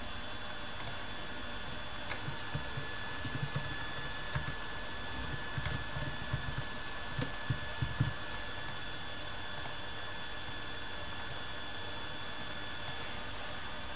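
Scattered computer keyboard and mouse clicks over a steady background hiss with a faint high whine; the clicks stop a little past halfway, leaving only the hiss.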